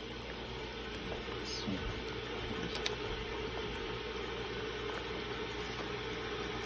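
Kofta curry gravy simmering in a pot, a steady bubbling hiss, with a faint click about three seconds in.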